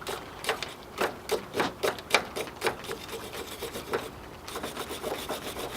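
Wire brush scrubbing corrosion off a backhoe battery terminal in short scraping strokes, about three a second, thinning out after about four seconds.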